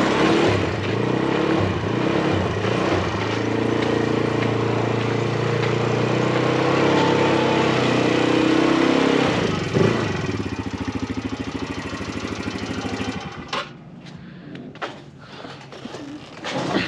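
A just-parked vehicle's engine idling steadily, then shut off about three-quarters of the way through, followed by a few sharp knocks and clicks.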